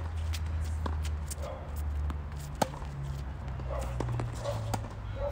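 Tennis rally on a hard court: several sharp pops of racket strings striking the ball, the loudest about two and a half seconds in, over a steady low rumble.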